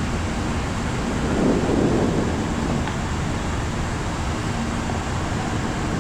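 Steady rush of airflow and engine noise on the flight deck of an Airbus A340-300 on final approach, with a brief swell about a second and a half in.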